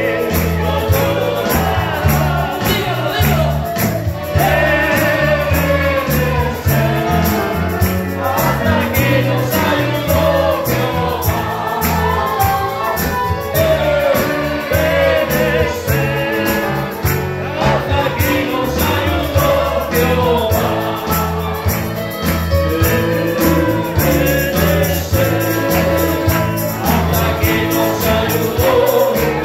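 Christian praise song (alabanza): a group of voices singing together over a band with a moving bass line and a steady, quick beat.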